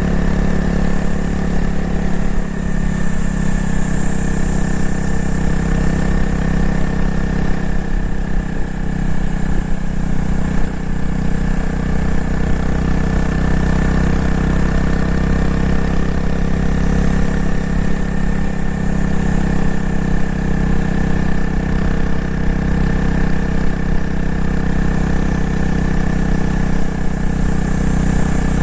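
Honda CRF250L single-cylinder engine and exhaust running at a fairly steady pitch, with no sharp revs or shifts standing out.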